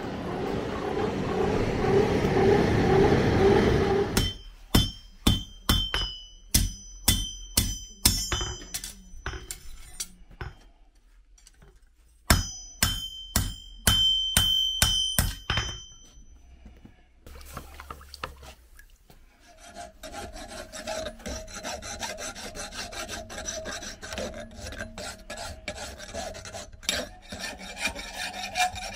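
A steady rushing noise at first, then a blacksmith's hammer striking hot iron on the anvil in two runs of ringing blows, about two a second. After a short pause, a hand file rasps steadily back and forth on the workpiece clamped in a vise.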